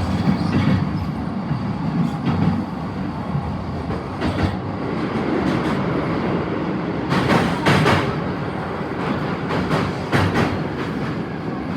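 Interior running noise of an E233 series commuter train car: a steady rolling rumble of wheels on rail, with bursts of clattering as the wheels cross rail joints and points, loudest about seven and ten seconds in.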